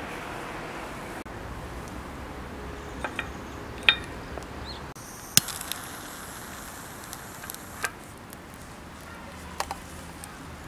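Cooking utensils knocking and clinking against cookware now and then: about seven sharp, irregularly spaced knocks, the loudest about four and five and a half seconds in, over steady background noise.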